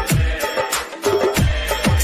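Instrumental Bollywood-style film music with a fast drum beat; deep drum hits that slide down in pitch.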